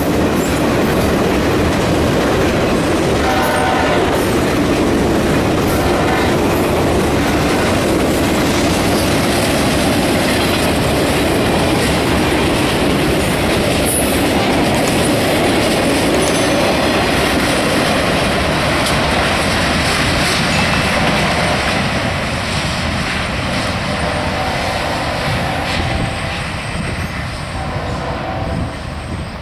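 Freight train rolling past close by: a loud, steady rumble and rattle of railcars and wheels on the rails, easing off somewhat over the last several seconds.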